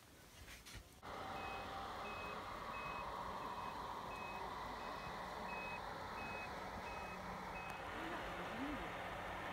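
A few scrapes of a snow shovel in the first second, then the steady running of a snowplow with its reversing alarm beeping, about eleven evenly spaced beeps, roughly three every two seconds, that stop about eight seconds in while the engine keeps running.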